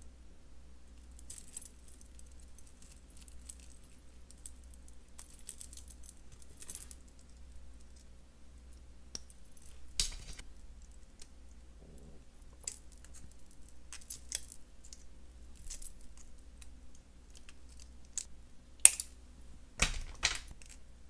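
Light metallic clicking and jingling of a copper chain and headpin wire being handled with jewelry pliers while a bead's wire loop is hooked onto a chain link and wrapped. Sharper clicks stand out about ten seconds in and twice near the end.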